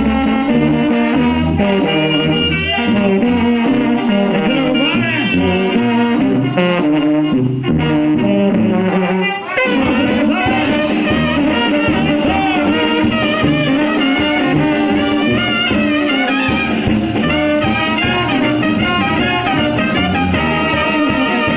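Live Mexican banda brass band playing, with a sousaphone bass line under trombones and other brass. There is a short break about nine and a half seconds in, then the full band comes back in.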